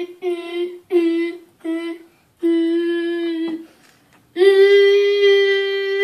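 A child's voice imitating a fire alarm sounding for a drill: a string of held, steady-pitched tones, several short ones, then a longer one, then one long tone from about four and a half seconds in.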